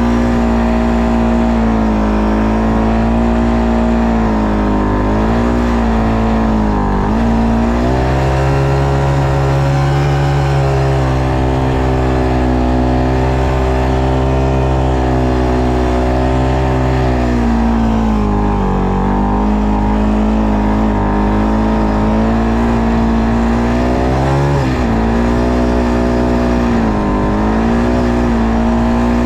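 ATV engine running under steady throttle while being ridden. Its pitch dips briefly and picks back up several times as the throttle eases and opens again.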